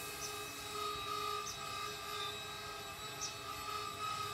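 Steady background drone made of several held tones, with faint short high chirps every second or so.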